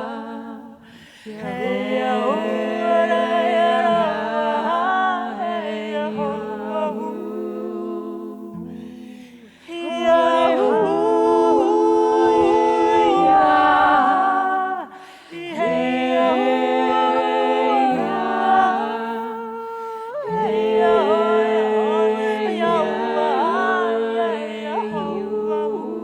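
A small a cappella vocal group singing a lullaby: several voices in close harmony over a held hummed drone and a stepping low bass line. It goes in four phrases of a few seconds each, with brief pauses for breath between them.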